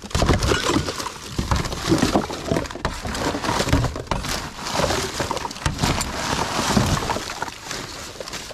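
Rubbish being rummaged through by hand and with a grabber tool: plastic bags and wrappers rustling and crinkling, with irregular knocks and clinks of bottles and cans being shifted.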